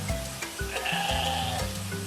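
A sheep bleating once, for about a second, over background music.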